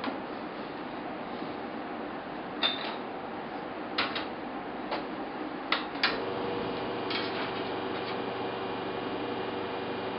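Metal clicks and knocks as an espresso portafilter is twisted and locked into the machine's group head. About six seconds in, a steady hum joins as the espresso machine's pump starts the shot.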